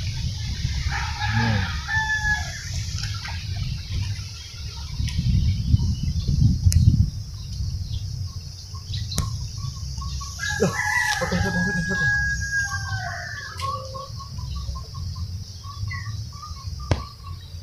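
Rooster crowing twice, a short crow about a second in and a long held crow about ten seconds in. Under it a low rumbling noise runs through the first half, loudest around six seconds, with a few sharp clicks.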